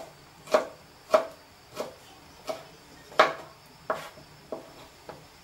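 Chef's knife chopping garlic and red onion on a plastic cutting board: about nine separate, sharp knocks of the blade on the board, roughly one every two-thirds of a second, the loudest a little after three seconds in.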